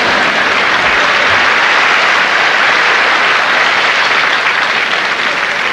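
Theatre audience applauding steadily, fading slowly toward the end.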